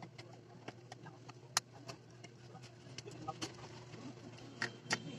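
Faint, scattered clicks and light taps of an Allen wrench on the screws of an electric hammer drill's plastic handle, one sharper click about a second and a half in, over a steady low hum.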